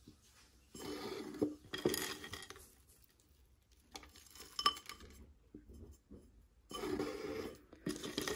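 Orchid stones and bark chips being dropped and pressed into a terracotta orchid pot: small hard pieces clicking and rattling against each other and the clay, in three short bouts with quiet gaps between.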